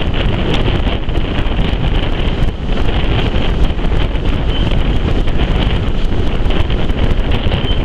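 Heavy wind buffeting the microphone held out of a moving railway carriage's window, over the steady rumble of the coaches running along the track.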